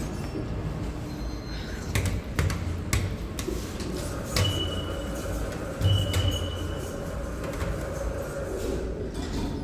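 Inside a Boltshauser elevator car: a few sharp clicks, then two high single-pitch beeps about a second and a half apart, over a steady low hum.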